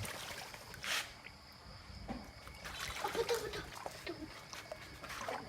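Water splashing and trickling in a small duck pool as young ducks move about in it, with one sharp splash about a second in and a few short calls around three seconds in.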